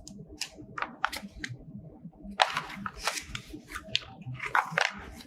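Plastic packaging being handled while accessories are unpacked, crinkling and crackling in irregular bursts, the densest about halfway through.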